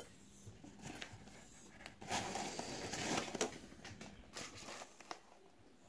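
Cardboard packaging handled and rustling for about a second and a half, with a few light clicks and knocks around it.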